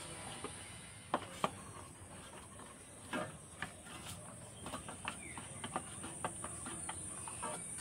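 Hands kneading a stiff flour dough in a steel bowl: scattered soft knocks and clicks, coming more often in the second half, over a faint steady hiss.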